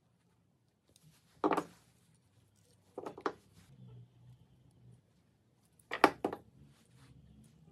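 Needle-nose pliers working a thin wire pin on a brass sheet brooch piece: a sharp click about a second and a half in, a quick double click about three seconds in and another double click about six seconds in, with faint handling rustle between.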